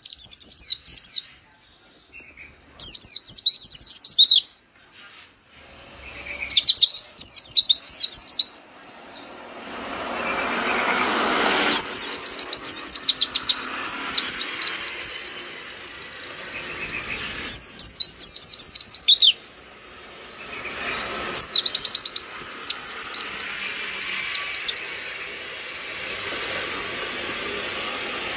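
White-eye (pleci) singing in fast bursts of high, rapid twittering, about six phrases of one to three seconds with short pauses between them. A softer background noise swells and fades between the phrases.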